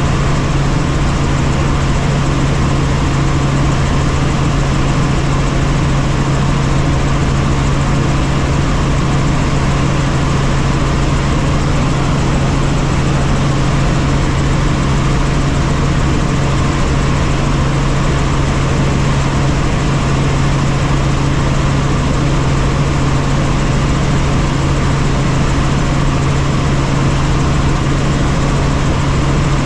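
Helicopter in flight heard from inside the cabin: a steady, loud drone of engine and rotor with a strong, unchanging low hum.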